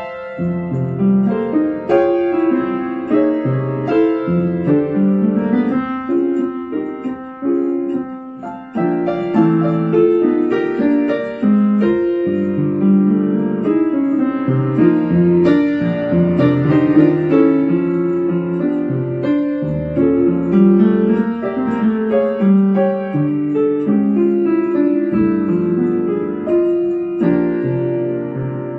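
Upright piano played solo: a steady stream of quick notes across the middle and low register, with a briefly softer passage about seven seconds in.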